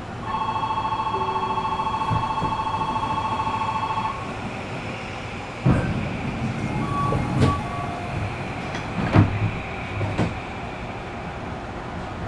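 Train door-closing buzzer sounding as a steady two-pitched tone for about four seconds at a station stop, followed by the sliding doors shutting with a heavy thump and several lighter knocks and clunks.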